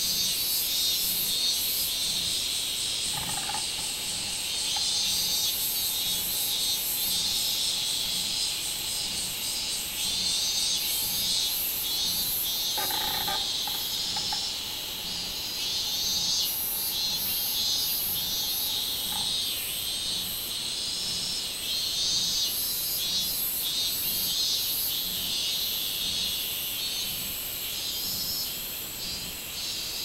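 Robust cicadas (minmin-zemi, Hyalessa maculaticollis) calling from the trees: a continuous high-pitched shrill that pulses in repeated phrases.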